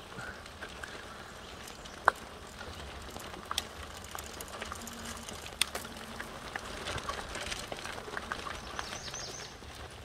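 Fat tires of a recumbent trike rolling slowly over a stony dirt trail, crunching on grit and leaf litter with scattered sharp clicks and snaps from small stones and twigs, the loudest snap about two seconds in.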